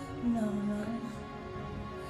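Slow music for a lyrical dance routine, with long held notes under a soft, gently moving melody.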